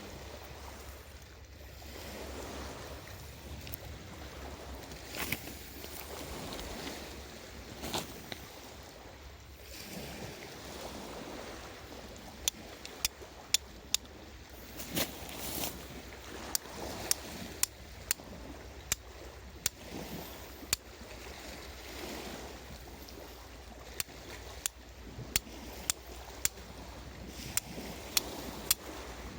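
Sharp clicks, roughly one or two a second, beginning about twelve seconds in: the back of a Higonokami folding knife's steel blade striking flint to throw sparks for lighting a fire. Before the striking starts, only a steady low hiss is heard.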